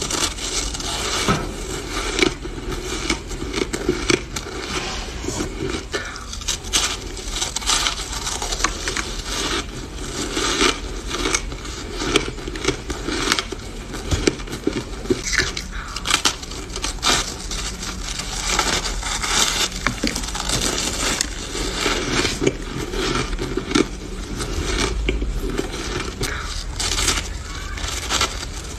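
Close-miked biting and chewing of soft, powdery packed shaved ice: dense, irregular crunching and crackling.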